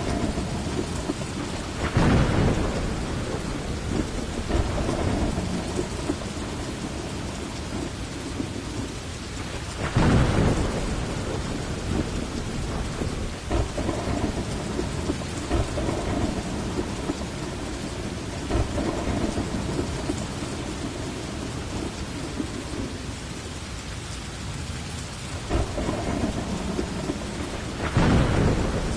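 Heavy rain falling steadily with rolling thunder; louder thunder crashes come about two seconds in, around ten seconds, and near the end.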